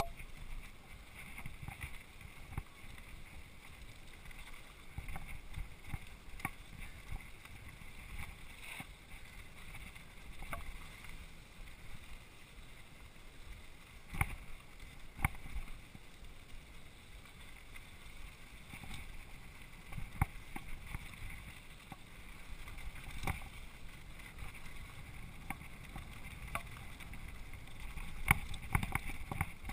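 Mountain bike rolling fast down a dry dirt trail: a steady low rumble of tyres and wind with frequent knocks and rattles as the bike goes over bumps, a few sharper jolts standing out.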